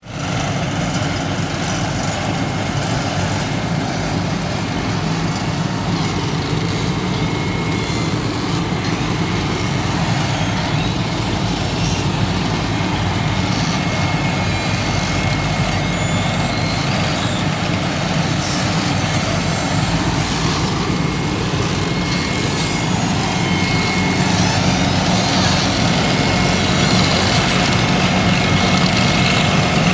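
Vögele SUPER asphalt paver at work, its diesel engine running steadily under a constant mechanical din. A thin high whine sits above it, and the whole grows a little louder near the end.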